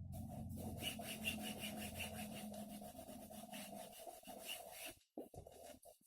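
Atlant refrigerator making a fast, rhythmic rattling knock of many beats a second, with a short cut-out near the end. This is the knocking fault the owner says returns every evening even on a voltage stabilizer.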